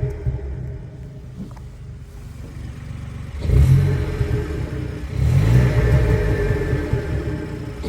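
Volkswagen Up GTI's turbocharged 1.0-litre three-cylinder engine, fitted with a stage 3 hybrid turbo, running low for about three seconds and then opened up twice, about three and a half seconds in and again about five seconds in, with loud induction noise; the second surge carries a rising whoosh over the engine note.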